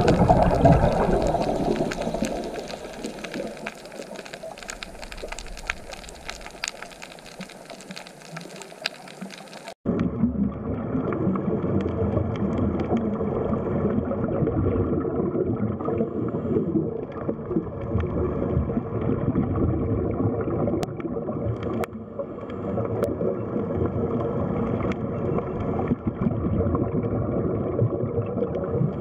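Underwater sound: gurgling water with a dense crackle of fine clicks, fading over the first ten seconds; after an abrupt cut, a steady, muffled underwater rumble with a faint hum.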